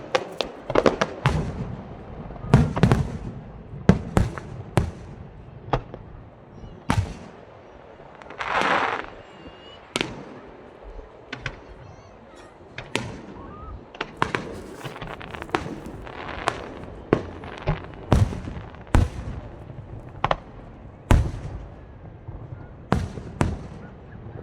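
Aerial fireworks bursting in an irregular string of sharp bangs, some close together, with a longer rush of noise lasting about a second near the middle.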